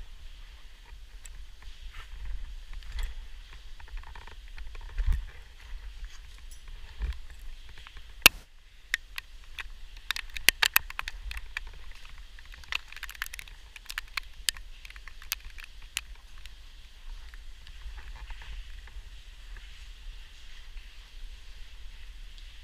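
Caver's rope-descent gear clicking and clinking during an abseil down a cave shaft, the clicks bunched in the middle, over a steady hiss and a low rumble.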